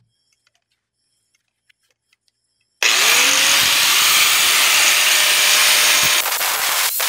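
Angle grinder started about three seconds in, its motor whine rising and then holding steady under a loud hiss of the disc grinding, which turns choppy near the end.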